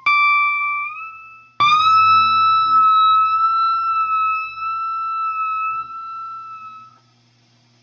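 Electric guitar playing a slow high lead phrase: one note slides or bends up a step about a second in, then a second note is picked, bent up and held with a slight vibrato for about five seconds before fading out near the end.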